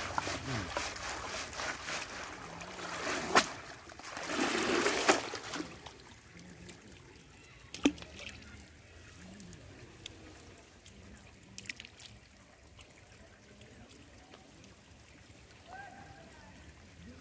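Water splashing and sloshing as a wicker basket of fish is swished in shallow muddy water, with two louder surges; after about six seconds it dies down to quiet, broken by a few sharp clicks.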